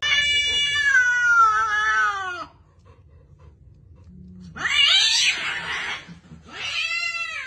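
A cat meowing: one long drawn-out meow that falls in pitch, then after a pause a harsh, screechy yowl, and a shorter meow near the end.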